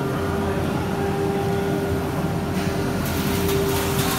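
Woodworking router centre running: a steady machine hum with one strong, even tone. About two and a half seconds in, a hiss and a series of sharp clicks join it.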